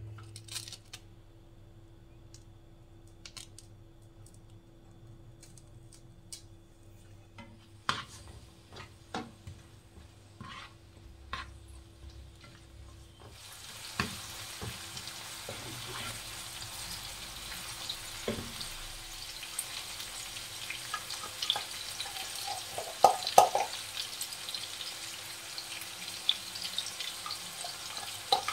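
Sliced red onions dropping into a non-stick frying pan with scattered light taps. About halfway through a steady sizzle sets in as they fry in hot oil, with clacks and scrapes of a spoon stirring them against the pan.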